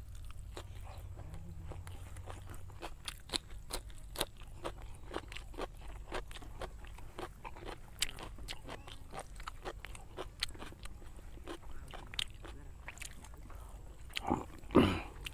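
Close-mouthed chewing of a mouthful of pork biryani: wet mouth clicks and smacks, several a second. A louder mouth noise comes near the end.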